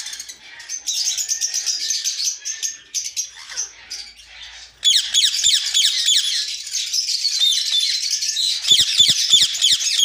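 A crowd of Indian ringneck parakeets in a breeding aviary chirping and screeching. Scattered high calls at first, then about halfway through a sudden, louder, dense chatter of rapid falling chirps. A few soft knocks near the end.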